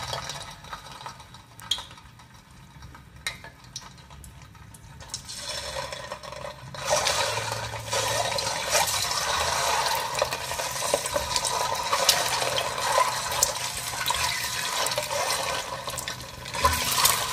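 Peeled hard-boiled eggs frying in hot oil in a steel pan: a faint sizzle at first that swells into a loud, dense frying sizzle about six or seven seconds in, with occasional clicks of a plastic spatula turning the eggs.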